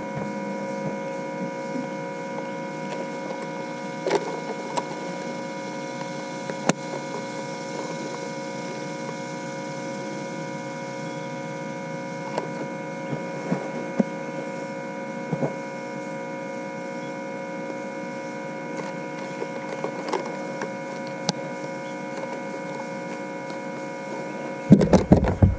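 Steady electrical hum made of several even, high tones, with a few faint clicks along the way and a short run of louder knocks and handling noise near the end.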